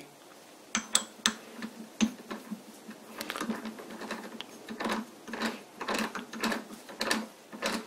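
A homemade chuck key turning the scroll of an old three-jaw lathe chuck, its jaws moving easily with a run of light, irregular metal clicks and ticks that start about a second in.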